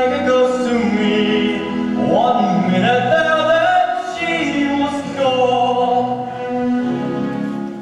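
A male voice singing a musical-theatre song over a sustained instrumental accompaniment.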